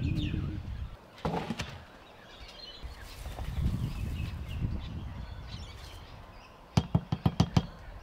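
Outdoor handling noises: rustling, a sharp knock about a second and a half in, and a quick run of about six knocks near the end, with birds chirping faintly.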